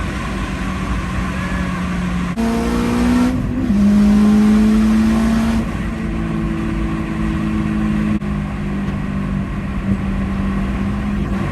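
Turbocharged Honda S2000's four-cylinder engine running under way, heard from inside the cabin. Its pitch jumps and glides a couple of seconds in, then holds steady and louder for a couple of seconds, with a brief break about eight seconds in.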